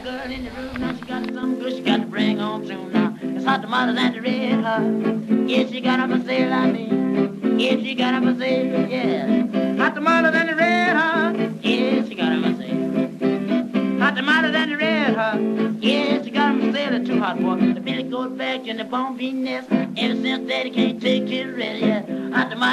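Background music: an acoustic guitar-led tune, with a wavering lead melody line that comes in twice around the middle.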